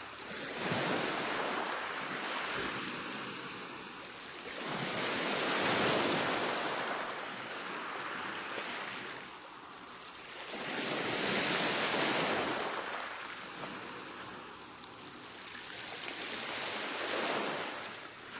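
Waves of a rough sea breaking in slow surges, four swells of rushing noise about every five to six seconds.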